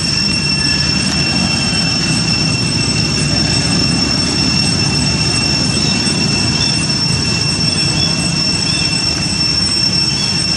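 Steady high-pitched insect drone with a higher overtone, over a dense low rumbling background, with a few faint short chirps in the middle.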